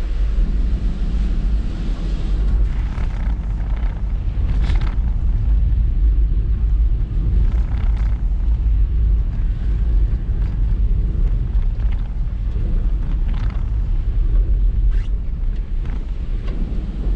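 Typhoon wind buffeting the microphone in a steady, heavy low rumble, with several short hissing gusts or bursts of surf spray standing out now and then.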